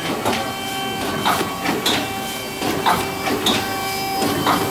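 Vertical form-fill-seal bagging machine running at 40 bags a minute: a steady whine from its drives, with a pair of sharp clacks repeating about every second and a half, one cycle per bag.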